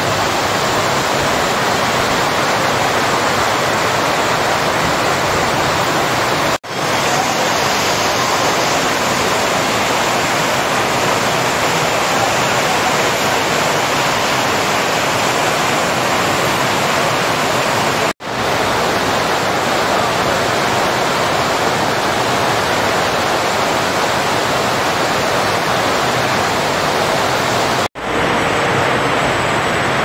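Steady, loud rushing noise of workshop ambience, cut off for a split second three times at edits.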